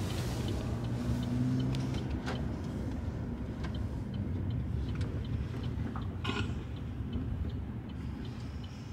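Low rumble of a car's engine and tyres heard from inside the cabin as it rolls slowly, with a few light clicks, the clearest about two and six seconds in.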